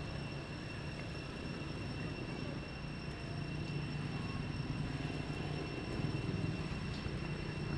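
A steady low rumble, a little louder in the second half, with a thin, steady high-pitched tone above it.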